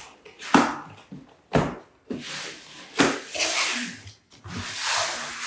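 Cardboard shipping box being opened: three sharp cardboard snaps and scrapes in the first three seconds as the lid's folded tabs are pulled free, then rustling of cardboard and plastic packaging as the lid is lifted and the contents are handled.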